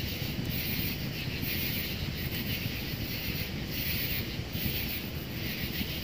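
Wood fire burning in a titanium tent stove: a steady low rumble, with a higher hiss that swells and fades about once a second.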